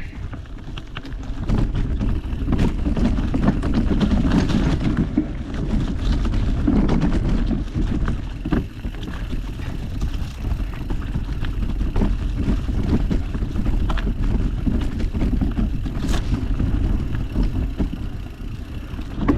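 Mountain bike being ridden over a rough dirt trail, heard from a bike- or body-mounted GoPro: a steady low rumble of tyres and wind on the microphone, with frequent clicks and knocks of the bike rattling over roots and rocks. It gets louder about a second and a half in.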